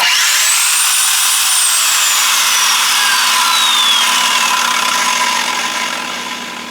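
Evolution S355MCS 14-inch metal-cutting chop saw started up: its whine rises quickly as the motor and blade come up to speed, then falls slowly and the sound fades as the saw winds down.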